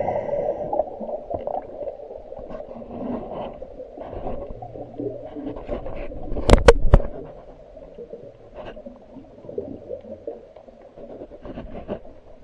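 Boat mooring hardware creaking and groaning, with scattered small clicks and three sharp knocks in quick succession about six and a half seconds in.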